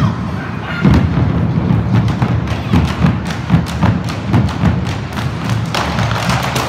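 An ensemble of large rope-tensioned wooden bass drums beaten with sticks in a driving rhythm, deep booming strokes several times a second. About six seconds in, a brighter, denser clatter of quick strokes joins the beat.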